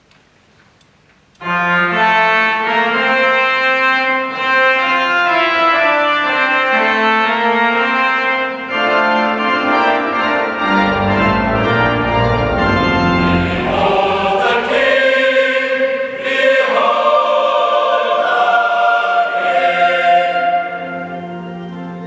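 Pipe organ playing sustained chords, starting abruptly about a second and a half in, with deep pedal notes swelling in the middle, and falling to a softer held chord near the end.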